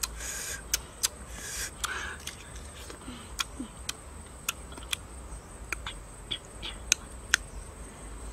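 Eating green tamarind from a coconut-shell bowl: scattered sharp clicks and taps of the fruit scraping the shell as it scoops chili salt, with crunching bites. A faint steady high-pitched whine sits underneath.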